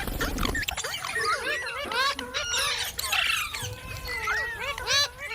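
Indian ringneck parakeets (green parrots) chattering and squawking: a dense, continuous run of quick rising and falling chirps and squawks, many of them overlapping.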